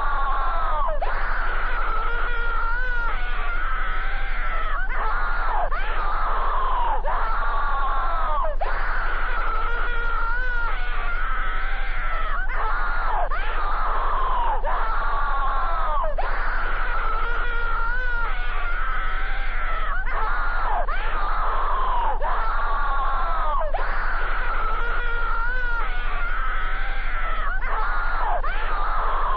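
Screaming with no let-up: one wailing cry after another, each rising and then falling in pitch, at about one a second in an even repeating pattern.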